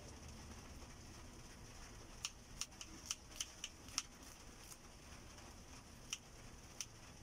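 Kitchen knife slicing garlic cloves on a plastic cutting board: faint sharp taps of the blade against the board, a quick run of about seven a couple of seconds in, then a few single taps.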